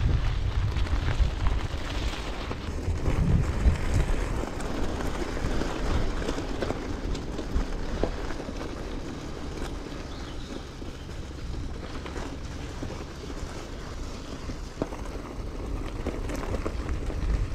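Wind rumbling on the microphone during a bicycle ride, with scattered light ticks and rattles.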